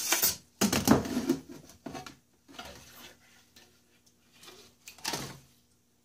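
Rustling and clattering as a freshly cured carbon fiber plate and a glass pane are lifted and handled, in a few separate bursts, the loudest about a second in.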